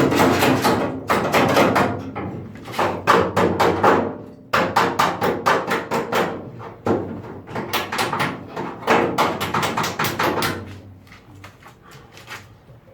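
A hammer beating sheet steel in fast runs of ringing knocks, several strikes a second, with two short pauses. It thins out to scattered taps near the end.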